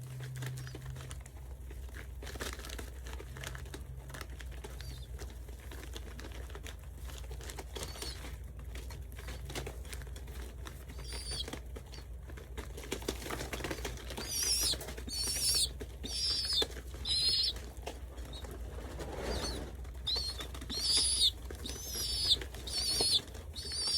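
Pigeons in a loft: rustling and light clicking, with some wing flapping, over a steady low hum. From about halfway in comes a run of short, high-pitched, wavering squeaks, repeated every half second to a second.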